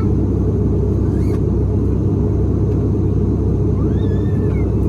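Steady low drone of an ATR 72's turboprop engines and propellers, heard inside the passenger cabin in flight.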